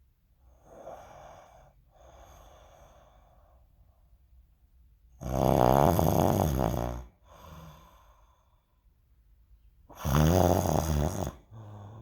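A sleeping person snoring loudly: two long, rasping snores about five seconds apart, each lasting about two seconds, with softer breaths between them.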